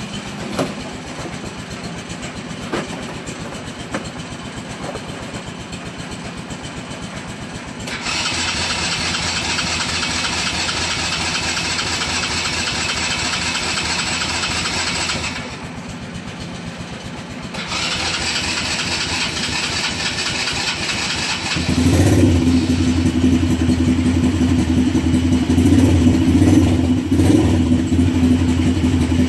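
Four-wheeler (ATV) engine cold-started on its electric starter. It cranks for about seven seconds, pauses briefly, then cranks again for about four seconds and catches, running steadily after that. Before the cranking, another engine idles steadily in the background.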